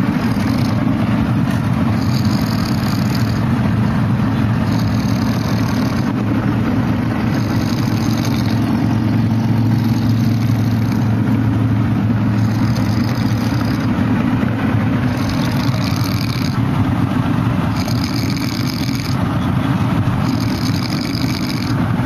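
A man snoring in regular breaths, roughly one every two and a half seconds, over the steady low rumble of a moving vehicle.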